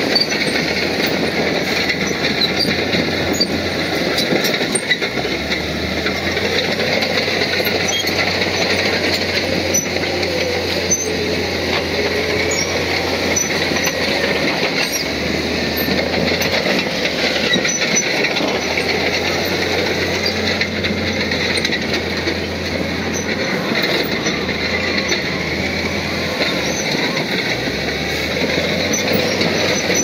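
Komatsu crawler bulldozer at work: its diesel engine and steel tracks running steadily and without a break.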